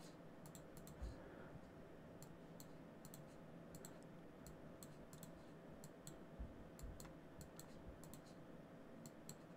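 Faint computer mouse clicks, single and in quick pairs, scattered over near-silent room tone with a weak steady hum.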